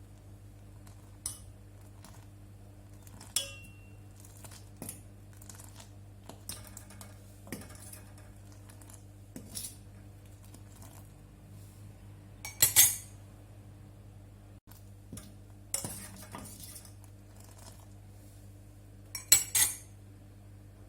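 Kitchen utensils and dishes clinking and clattering on and off, with louder clusters about twelve, sixteen and nineteen seconds in, over a low steady hum.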